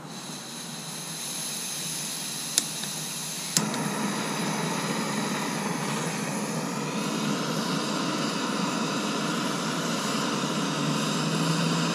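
Gas hissing from an ultralight canister camping stove as its valve is opened. The piezo igniter clicks twice, about two and a half and three and a half seconds in. After the second click the burner lights and burns with a steady, fuller rush.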